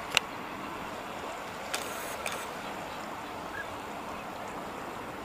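Steady, even rushing noise of open outdoor air, with one sharp click just after the start and two fainter clicks about two seconds in.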